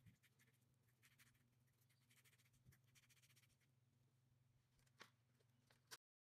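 Near silence: a faint steady hum with soft rustles and light ticks from hands rolling bun dough into balls, and two sharper clicks near the end. The sound then cuts out completely.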